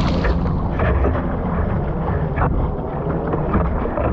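Surf and rushing water with wind buffeting the microphone: a loud, steady low rumble with brief crackles.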